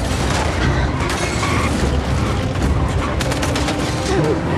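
Car-chase sound mix: heavy armoured trucks and cars running with a loud low rumble, under a dense run of sharp cracks that is thickest about three seconds in.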